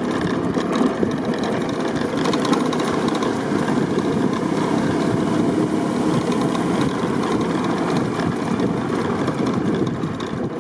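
Motorbike engine running steadily while the bike rides along a dirt track, heard from the rider's seat.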